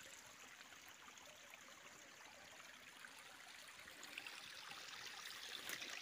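Faint, steady trickle of a small forest stream carrying runoff after days of heavy rain, growing slightly louder about two-thirds of the way through. A few faint clicks near the end.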